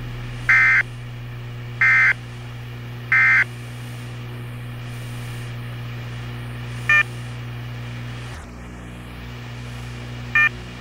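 NOAA Weather Radio between messages: three short, buzzy digital data bursts about a second and a half apart, the SAME end-of-message code that closes the flood warning. They sit over the steady hiss and hum of the radio reception. Two much shorter blips come later, about seven and ten seconds in.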